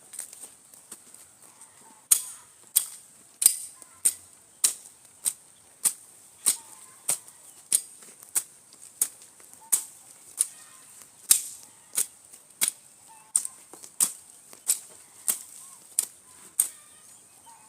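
Sharp strikes repeating steadily, about one every 0.6 s and about two dozen in all, starting about two seconds in, over a steady high hiss.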